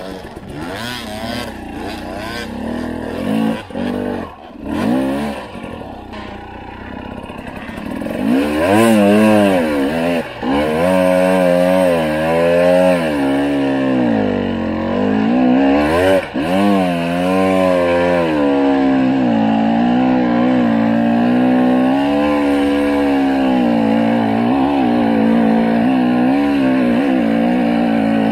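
Husqvarna TE300i two-stroke enduro motorcycle engine, heard close up, revving up and down with the throttle as it rides a dirt trail. Quieter and choppy for the first several seconds with a couple of brief drops off the throttle, then loud and steady from about eight seconds in, its pitch rising and falling.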